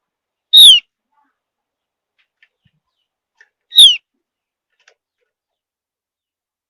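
Javan heleia (opior Jawa) giving two short, loud calls about three seconds apart, each note falling in pitch.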